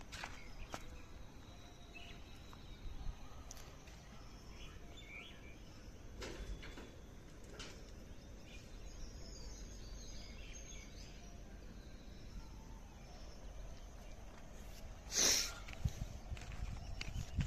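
Outdoor background noise with faint, scattered bird chirps. Occasional clicks and rustles come from the phone being handled, with one louder brief rustle about fifteen seconds in.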